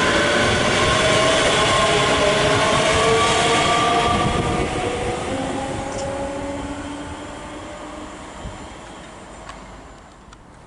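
ScotRail class 385 electric multiple unit passing, with the roar of wheels on rail and a whine from its traction motors that climbs slowly in pitch. About four seconds in, the sound starts to die away as the train recedes.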